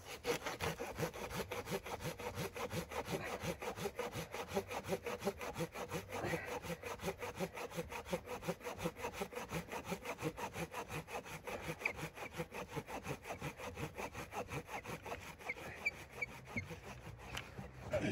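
Hand saw cutting through a dead, dry log with fast, steady back-and-forth strokes, stopping just before the end.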